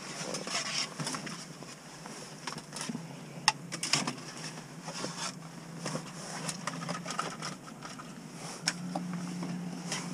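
Handling noise in a car's stripped interior: scattered clicks, light knocks and rustling as plastic trim pieces, wires and tubing are moved about.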